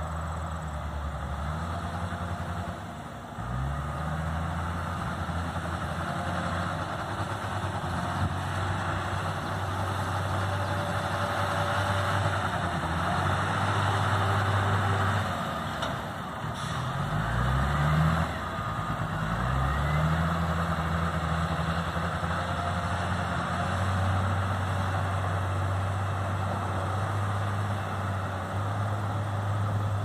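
Heavy diesel engine of a wheel loader running at a steady hum and revving up a few times, its pitch rising: once a few seconds in, and twice more a little past halfway.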